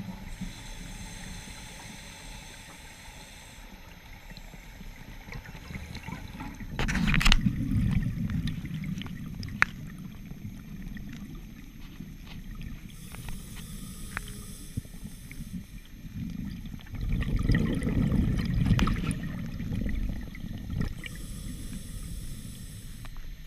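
Scuba diver breathing through a regulator underwater: three hissing inhalations, alternating with two loud, low, bubbling gushes of exhaled air.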